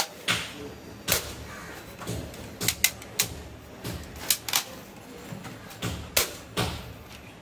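Hollow red plastic toy rifle clicking and knocking as it is handled: sharp, irregular clicks about a second apart, some in quick pairs.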